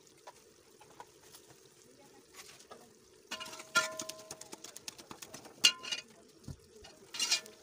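Large metal spoon stirring and scraping onions, tomatoes and spices in oil inside a metal pressure cooker pot. From about three seconds in, the spoon knocks against the pot several times, and each knock leaves the pot ringing briefly.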